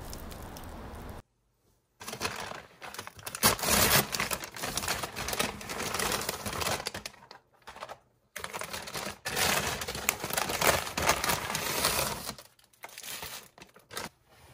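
Paper takeout bag rustling and crinkling as hands open it and pull food out, in two spells of irregular crackling with a short pause between them. It follows about a second of steady background noise that cuts off.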